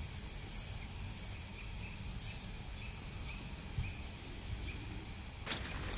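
Outdoor ambience: a steady low wind rumble on the microphone, with a small bird chirping faintly about twice a second through the first half, and a brief rustle near the end.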